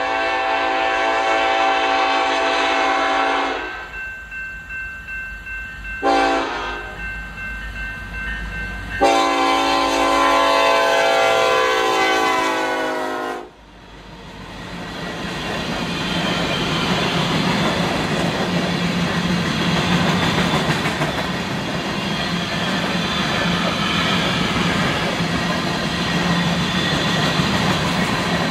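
Diesel freight locomotive horn sounding a long blast that ends, a short blast, then a long blast whose pitch sags as the lead locomotive passes. Then the covered hopper cars of a sand train roll by with a steady wheel rumble and clickety-clack.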